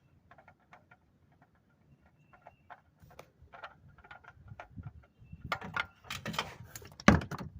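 Light, irregular clicks and taps of tools and parts being handled, getting busier, then a clatter of louder knocks in the last two seconds, the loudest about half a second before the end.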